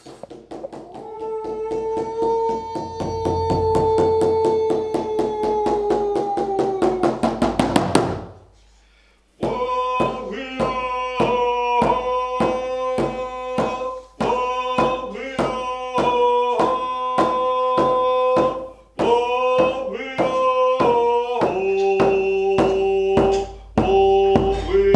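Rawhide hand drum beaten in a steady beat under singing in long held notes. The strokes quicken to a flurry and stop about eight seconds in, and after a short pause the drum and song start again.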